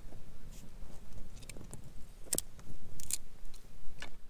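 Dry sticks snapping and cracking as they are handled and laid onto a small newly lit campfire: about half a dozen separate sharp snaps, the loudest in the middle.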